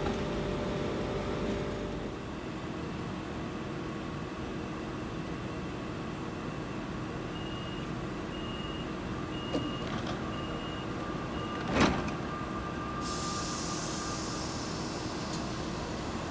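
Class 69 electric multiple unit standing at the platform with a steady hum: a run of evenly spaced door-warning beeps, then a loud thump as the sliding doors shut, followed by a steady hiss of air.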